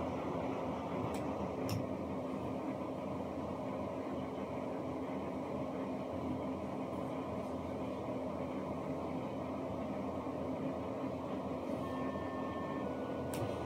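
Code 3 MX7000 lightbar running with its five rotator lamps turning: a steady mechanical whir and hum from the rotator motors and gears, with a couple of faint clicks near the start.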